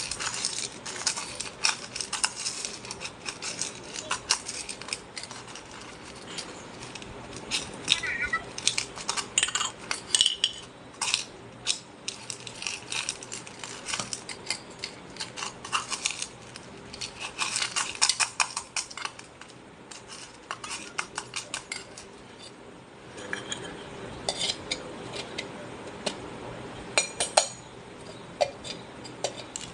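Metal spoon clinking and scraping inside a small aluminium pot, in quick irregular strokes as it is stirred, with bursts of clinks coming and going.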